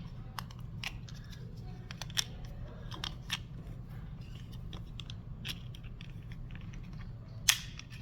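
Scattered light clicks and scrapes of a gas pressure sensor's plastic housing and parts being handled and slid apart, with a sharper click about seven and a half seconds in.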